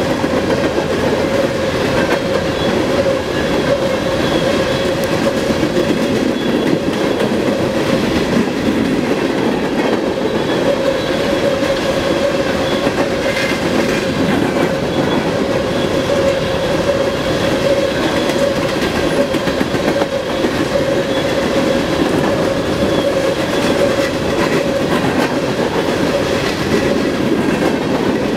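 Train cars rolling past close by: a loud, steady rolling rumble of wheels on rail, with a steady ringing tone riding over it.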